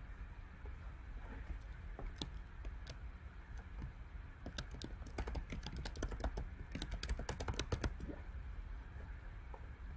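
Typing on a computer keyboard: a few separate key presses, then a quick run of keystrokes from about four and a half to eight seconds in as a line of text is typed.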